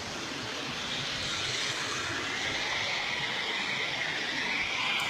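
A steady, unbroken rushing noise, with its hiss strongest in the upper range.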